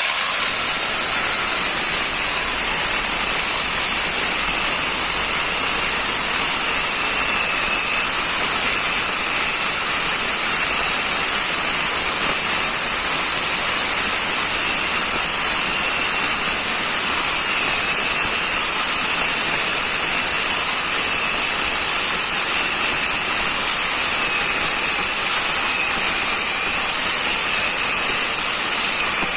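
Four-inch angle grinder fitted with a chainsaw adapter, its chain cutting through a log about 9 inches thick. The noise is a loud, steady high-pitched hiss with a faint wavering whine, starting abruptly and holding even throughout.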